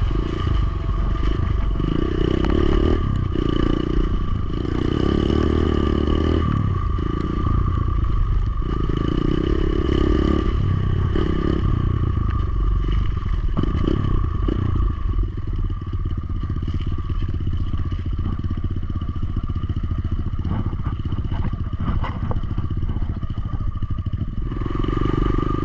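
Dirt bike engine running steadily as it rides a muddy, rutted trail, with clattering from the bike over the bumps.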